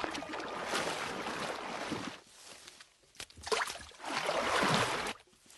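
Water splashing in several rushes as piraputanga fish thrash at the river surface, fighting over fruit dropped into the water: one long rush at the start, a short splash past the middle, and another rush near the end.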